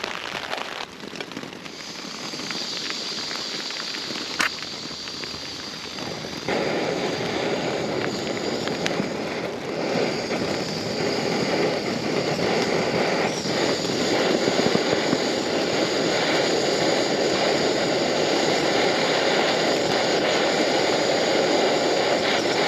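Camping gas stove being lit to boil a kettle: gas hisses, an igniter clicks about four seconds in, and a couple of seconds later the burner catches with a sudden rush and then burns steadily, with rain on the tent behind it.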